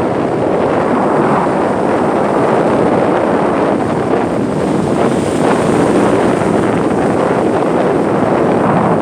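Baltic Sea storm surf surging and washing ashore: a loud, continuous rush of breaking waves, mixed with wind on the microphone.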